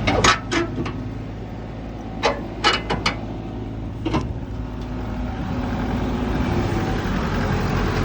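Heavy diesel engine running steadily at idle, with a series of short, sharp metal knocks in the first half.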